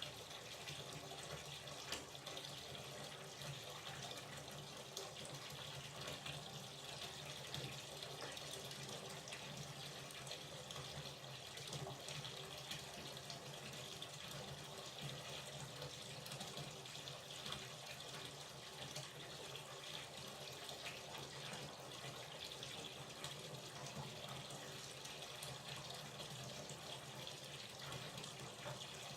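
Hot water running steadily from a tap into a bathtub, filling the bath: a constant splashing rush with small bubbling flickers.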